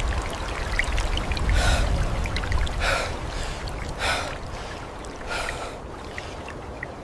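Rushing floodwater over a deep rumble, with a hissing surge about every second and a bit; the rumble eases after a few seconds.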